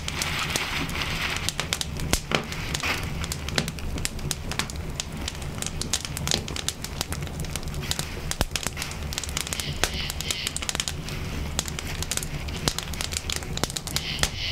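Fire crackling in a metal burn barrel as wood and cloth burn. It gives many irregular sharp pops and snaps over a steady low rumble.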